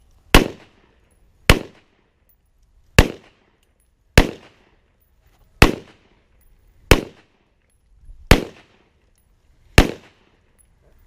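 Rifle fired in single shots, eight in all, at a steady pace of about one every second and a half, each crack followed by a short echo.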